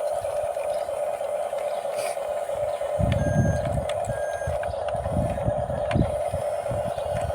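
Small RC bulldozer's electric motors whining steadily, with its reversing beeper starting about three seconds in, beeping roughly once a second, as low rumbling noise joins.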